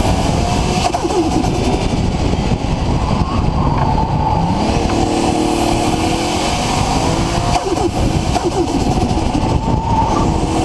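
Nissan RB26 straight-six with a big single Garrett GTX4088R turbo, running loudly with the engine pitch rising and falling as it revs.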